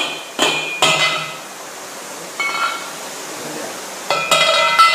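Steel parts of a manual hydraulic pipe bender clanking together with a metallic ring, as the bent pipe and bending shoe are handled. Three knocks in the first second, one near the middle, and a cluster near the end that rings on longest.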